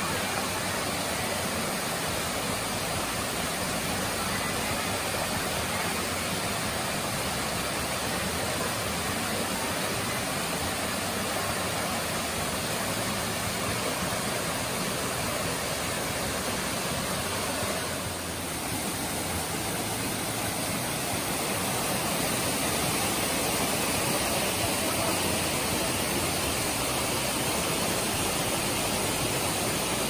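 Waterfall cascading down rock slabs: a steady, dense rush of falling water, a little louder in the last third.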